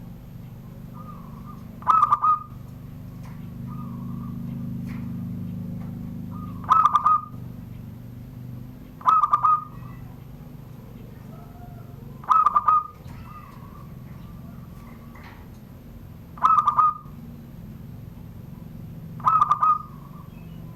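Zebra dove (perkutut) singing the song style fanciers call surung gdor: six loud, short bursts of rapid cooing notes, one every few seconds, with softer notes between them. A steady low hum runs underneath.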